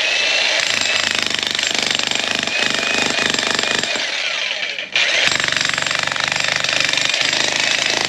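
Electric demolition hammer (VEVOR 110-volt breaker) with a chisel bit hammering into hard rock: a fast, steady rattle of blows that stops for a moment just before five seconds in and starts again at once.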